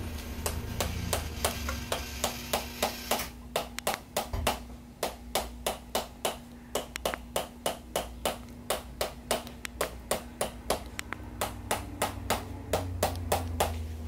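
A small mallet tapping a metal adjusting stylus held against the lower back in a steady run of sharp taps, about two to three a second, with a brief pause about four seconds in. This is instrument-assisted percussive chiropractic adjusting of the lumbar spine.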